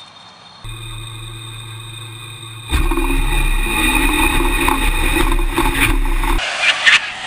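A modified electric golf cart on a drag-strip pass: its electric drive motor whines with wind noise rushing over the open cart. The sound steps up abruptly about a second in and again near three seconds, with a tone rising in pitch as it gathers speed, then drops off sharply near the end.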